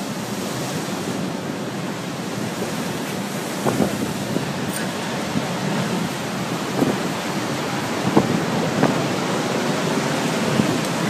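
Rough storm sea, with waves breaking and surging against a sea wall, and strong wind buffeting the microphone; the steady noise swells briefly a few times.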